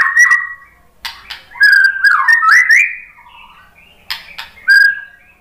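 White-rumped shama singing: three loud phrases of varied whistled notes that slide up and down, mixed with sharp clicking notes and high chips, with short pauses between phrases.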